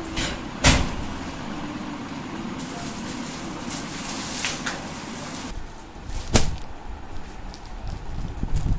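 A steel almirah's door and lock clank with a sharp metal knock, then plastic-wrapped saris crinkle and rustle as they are handled. Another knock comes about six seconds later.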